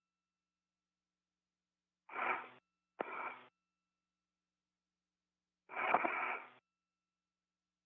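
Short bursts of an astronaut's breathing over the spacewalk radio loop, cut off into dead silence between them: two quick breaths a couple of seconds in, then a longer one about six seconds in.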